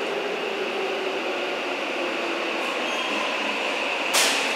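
Saitama Railway 9000 series subway train approaching an underground platform: a steady rumble and hiss with a high whine that grows louder. About four seconds in, a sudden short burst of hiss comes as the train enters the platform, and a falling whine begins as it slows.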